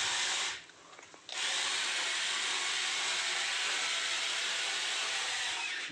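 Miniature excavator's small motor whirring steadily, cutting out for under a second near the start and then starting again.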